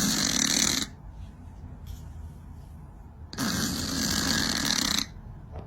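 Domestic cat snoring while asleep: two long, noisy snoring breaths, the first ending just under a second in, the second lasting about a second and a half from a little over three seconds in.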